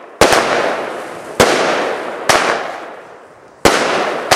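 Bonfireworks 'Midnight Delight' 16-shot firework cake firing its shots: about five sharp bangs in quick succession, each fading away over about a second before the next.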